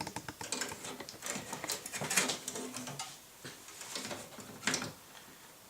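Graphics card being handled and pushed into the motherboard's PCIe slot: irregular small clicks, knocks and scraping of plastic and metal, with sharper clicks about two seconds in and near the end.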